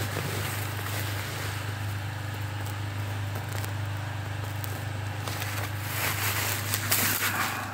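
Ponsse Ergo forest harvester's diesel engine idling with a steady low hum. From about six seconds in, crunching footsteps on the brushy forest floor sound over it.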